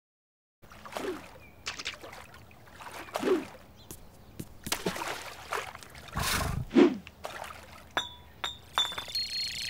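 Cartoon sound effects of water and ice: a run of irregular wet plops and knocks with glassy clinks, a louder splash about six seconds in, and a few short ringing clinks near the end.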